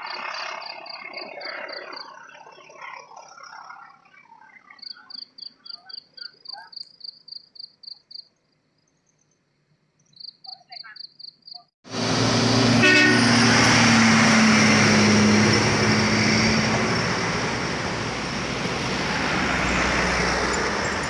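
Insects chirping in a fast, even pulse over faint background noise; then, about twelve seconds in, loud engine noise starts abruptly: the diesel of a heavily loaded truck labouring up a steep climb, with a low steady hum running through it for a few seconds.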